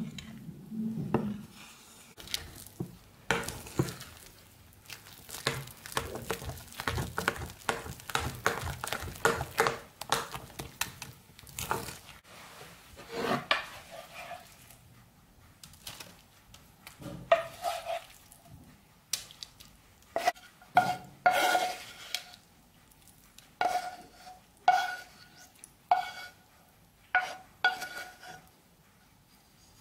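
A metal spoon stirring flour and egg into a batter in a ceramic bowl, making a fast run of scraping clinks. Later come separate knocks that ring with a clear pitch, as a spoon and pan clank while vegetable filling is scooped from a frying pan into a baking tin.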